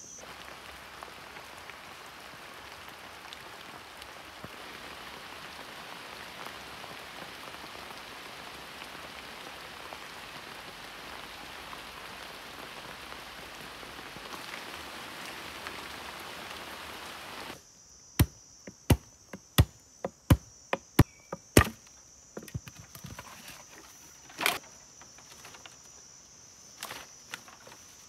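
A steady even hiss, then after an abrupt change about two-thirds in, a run of about nine sharp knocks roughly two a second, with a high steady insect buzz behind them: bamboo being struck with a stone axe.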